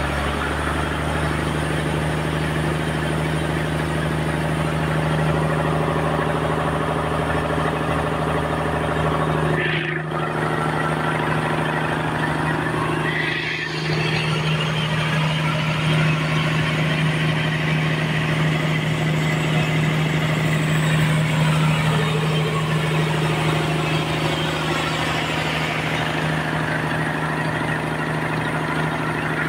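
Sawmill running steadily: a low engine-like drone with a dense hiss over it. It dips briefly twice, about a third of the way in and again a few seconds later.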